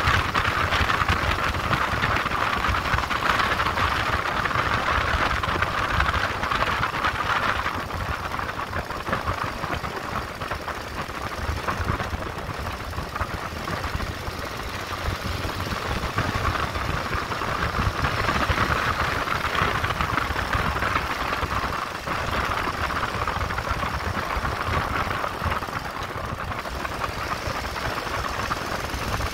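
Motorcycle engine running while riding, mixed with wind rushing past the bike; the sound eases off for a stretch in the middle and picks up again about two thirds of the way through.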